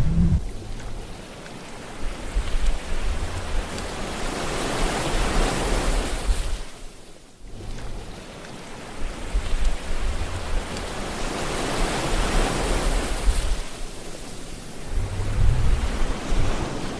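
Ocean surf: waves washing in as slow swells of rushing water that build and fall away, with a low rumble under each swell and a brief lull about seven seconds in.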